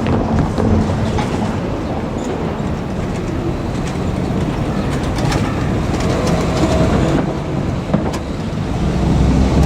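Ibusuki no Tamatebako diesel railcar train running past, a steady rumble of engine and wheels on the rails with a few sharp clicks about five and eight seconds in.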